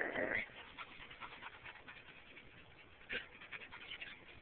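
Rhodesian Ridgeback dogs tussling: a loud dog noise stops about half a second in, then quieter panting and small clicks, with one brief louder sound about three seconds in.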